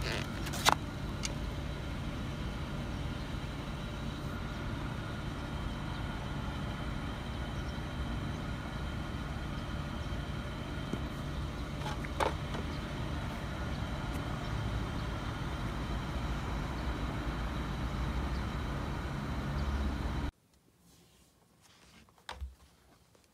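Steady outdoor background noise with a low rumble, broken by two sharp clicks. About 20 seconds in it cuts to near silence with one light knock.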